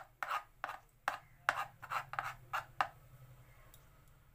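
A metal spoon scraping against the inside of a metal bowl while stirring thickly marinated paneer cubes: about ten quick scrapes over roughly three seconds, then they stop.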